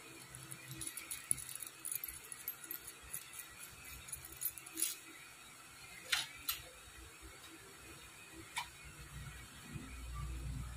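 Light metal clinks and taps of nuts, washers and a steel rod against an air-cooled motorcycle cylinder block as it is clamped down for reboring, with a few sharper clicks. A low steady hum comes in near the end.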